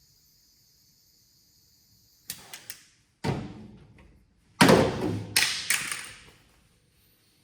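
Three quick light clicks, then a sudden heavy thump that dies away over about a second, followed by a louder thump and two more knocks close after it.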